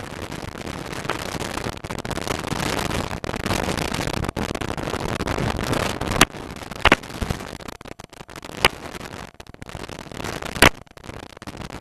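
Steady rushing noise of a Tiger Moth biplane in flight, heard through the cockpit intercom, broken by several sharp crackling pops in the second half.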